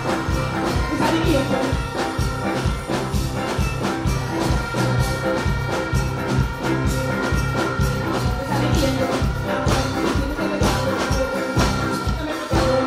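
Loud live band music with a steady, driving beat and sustained keyboard or horn-like chords.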